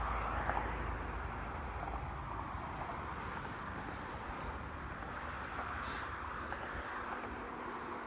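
Highway traffic: a steady hiss of passing vehicles' tyres that swells and eases slowly, with a low rumble fading out about a second in.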